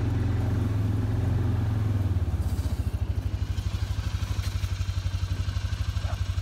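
Small vehicle engine running steadily. About two seconds in it settles into an even, pulsing idle.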